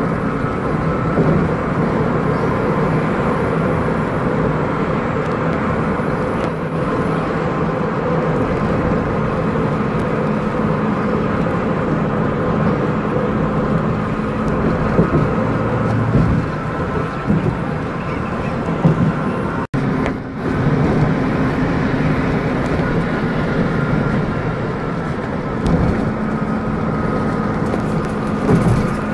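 Steady engine and road noise heard from inside a coach cruising at motorway speed. The sound briefly cuts out about two-thirds of the way in.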